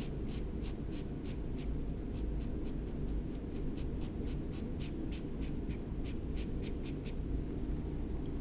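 Metal dip-pen nib scratching across paper in quick short hatching strokes, about three a second, stopping about seven seconds in. A steady low hum runs underneath.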